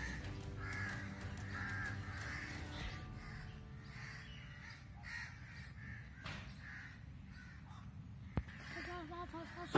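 Crows cawing: a run of caws about one every three-quarters of a second, then fainter and sparser calls, with a single sharp click near the end.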